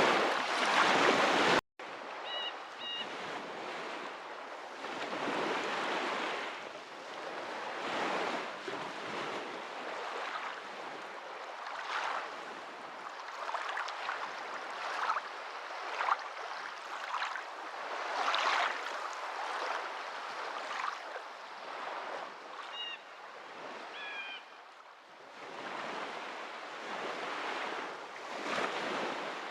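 Water washing in repeated surges that swell and fall every second or two, like small waves on a shore. A louder stretch at the start cuts off abruptly about a second and a half in, then the softer wash resumes. Faint bird chirps come through twice.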